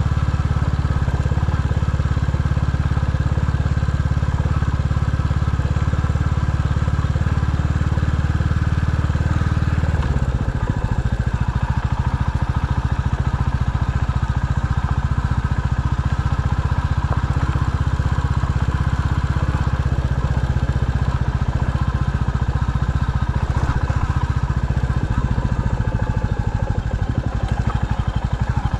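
Motor vehicle engine running steadily while driving along an unsurfaced byway, a loud low drone whose note drops about ten seconds in.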